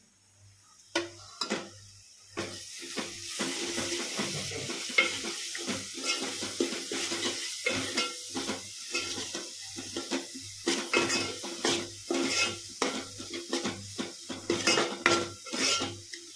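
Metal spoon stirring and scraping in a pan of frying onion and ground masala paste, with repeated clatters against the pan. The sizzling sets in about two and a half seconds in.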